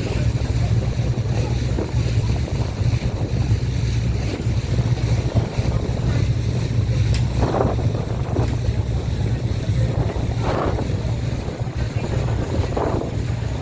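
Passenger boat under way: its engine running with a steady low hum, water rushing past the hull and wind buffeting the microphone.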